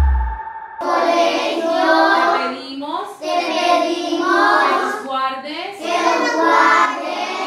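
Young children's voices singing together in unison: three phrases with short pauses between them, which the praying children suggest is a sung prayer.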